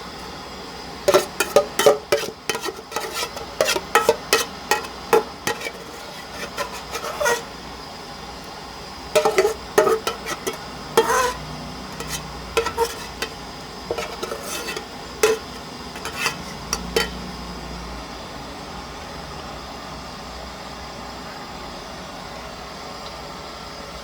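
Kitchen utensils knocking and clinking against cookware in irregular clusters of quick strikes, with scraping between them, over a steady background hiss; the clatter dies away about three-quarters of the way through.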